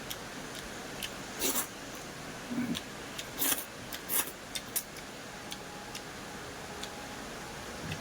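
Close-up eating sounds: a few short crunching and chewing bursts and small sharp clicks, busiest in the first half, over a steady faint hiss.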